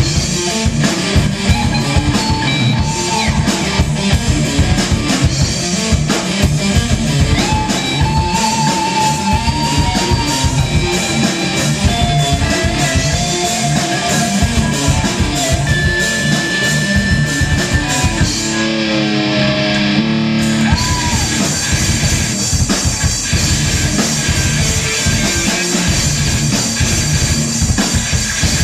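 Live rock band playing loud and hard: distorted electric guitars, bass guitar and a drum kit driving a fast beat. About two-thirds of the way through, the cymbals drop out for a couple of seconds over held chords, then the full band comes back in.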